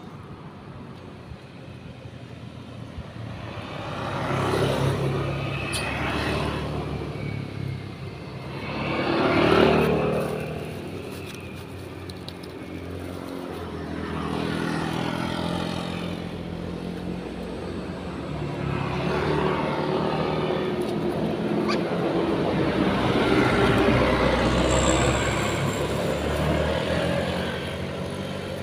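Motor vehicles passing one after another on a nearby road, each engine swelling and fading; the loudest pass comes about ten seconds in, and a longer, heavier-sounding pass comes in the second half.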